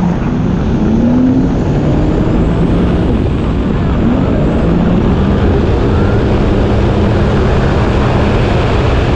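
Sea-Doo jet ski under way: a steady engine drone under a loud rush of wind and water.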